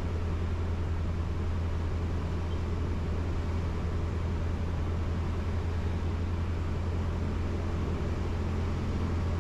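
Steady drone of a Cessna 150's Continental O-200 four-cylinder engine and propeller in flight, heard inside the cabin, with a strong low hum.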